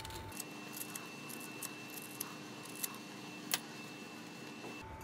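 Quiet room tone with a faint steady high tone and a few light, scattered clicks, one sharper click about three and a half seconds in.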